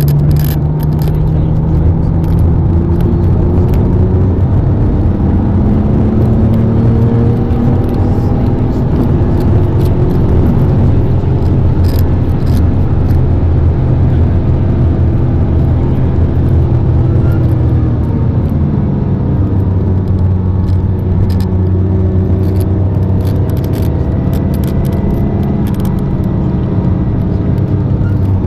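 Supercar engine heard from inside the cabin at full track pace: the note climbs steadily as the car accelerates, drops as it slows for a bend, then climbs again, over steady tyre and wind rush.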